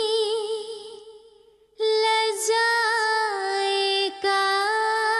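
A woman's voice singing long held notes with vibrato, from a slow background song. The first note fades away about a second and a half in; a new note starts just before two seconds, steps down a little midway, and breaks off for a moment near the end before carrying on.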